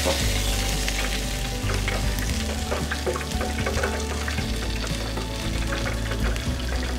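Hot oil in an electric deep fryer crackling and sizzling steadily, with a breaded fried croaker fish held just above it.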